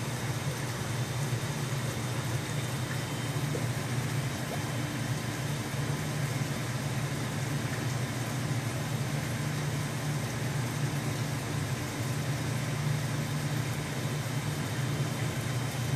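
Aquarium pump and filter running: a steady low hum under an even hiss of moving water.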